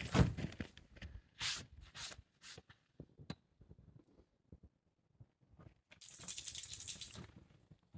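Handling noises: a thump at the start, then a few short rustles and a click, and a longer rustle of fabric about six seconds in, as a dog bed of blankets is set out.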